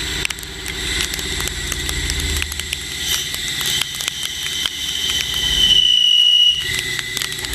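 Machine-shop machinery running: a steady whine with high, slightly wavering tones over a low hum, and many sharp clicks and ticks.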